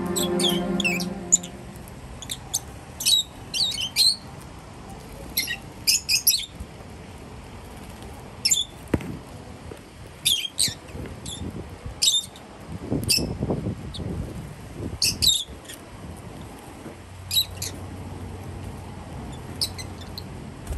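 A flock of rosy-faced (peach-faced) lovebirds calling: short, sharp, high-pitched chirps and squawks, singly and in quick clusters at irregular intervals.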